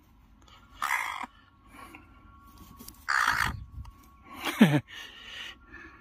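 Tame crow giving short harsh caws, about a second in and again around three seconds, as it tugs at a dangled twig. A short human laugh comes near the end.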